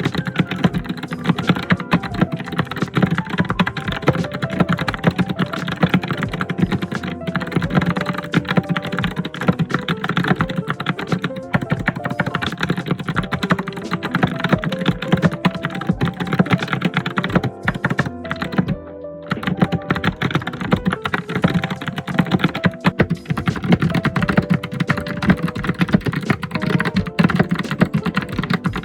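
Fast, continuous typing on a computer keyboard: a dense run of key clicks, with a brief pause about nineteen seconds in.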